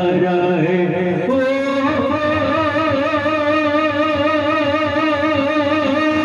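A man singing a Bengali gojol (Islamic devotional song) through a microphone and PA loudspeakers, moving to a long held, wavering note about a second in.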